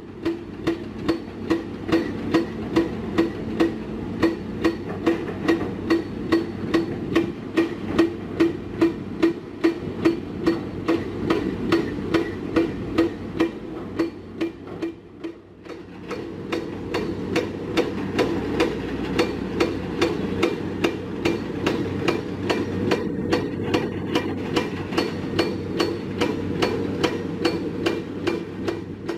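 Hydraulic rock breaker on an excavator pounding rock in a fast, even series of blows, about three to four a second, with the machine's diesel engine running underneath. The blows ease off briefly about halfway through, then resume.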